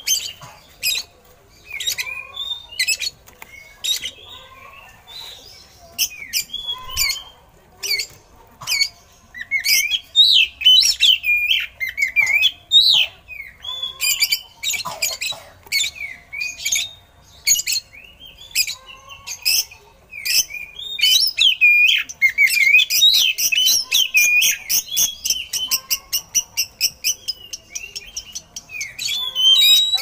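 Oriental magpie-robin (kacer) singing: spaced sharp, harsh call notes at first, then from about ten seconds in loud, rapid whistled phrases that run together into a fast, dense warble near the end. Its song is offered as filled with mimicked eagle calls.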